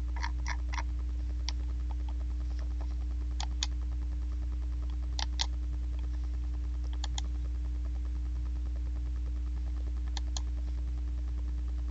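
Scattered clicks of a computer mouse, several in quick pairs, over a steady low hum.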